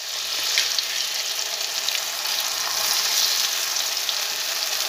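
Soaked, peeled field beans (mochai) deep-frying in smoking-hot oil in a kadai: a loud, steady sizzle with scattered crackles as the water in the freshly added beans boils off into froth.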